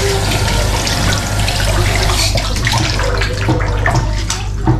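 Kitchen tap running into a sink while raw meat is rinsed by hand in a pan, water splashing steadily.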